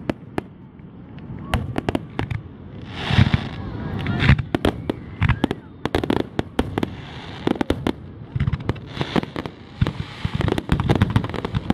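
Fireworks display: aerial shells bursting in quick succession, many sharp bangs with crackling and hissing. There is a loud crackling flurry about three seconds in.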